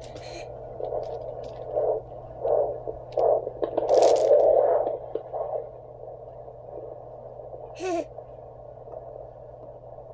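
Handheld fetal Doppler searching over the lower belly. Its speaker gives a steady static hiss and hum, broken by uneven whooshing surges and scrapes as the probe moves. The whooshes are the mother's own pulse and blood flow; no fetal heartbeat is picked up, as it is still too early in the pregnancy.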